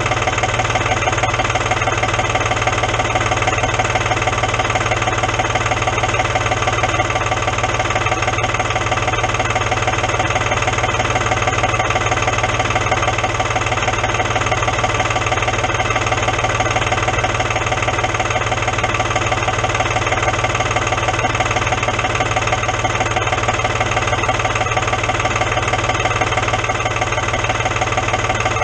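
A vehicle engine idling steadily and evenly, left running with no change in speed.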